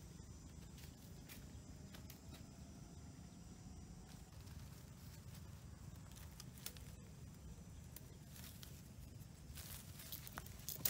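Light footsteps and rustling in dry leaves and twigs, with scattered soft snaps and crackles as leafy branches are pulled and handled, over a faint low rumble. One sharper snap comes near the end.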